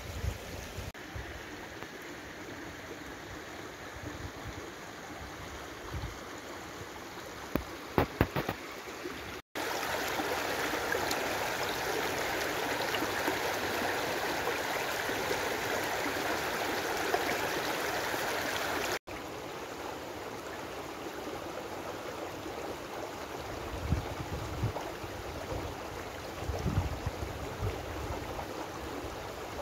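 A fast-flowing, rocky woodland stream rushing and splashing over stones, louder through the middle stretch where it is close by. A few short knocks come just before the first change and some low thumps near the end.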